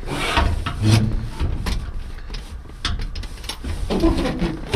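Rustling, knocks and rattles from the steel frame and coil springs of a 1941 Dodge WC pickup's bench seat back as it is tilted forward and handled, with several sharp clicks scattered through.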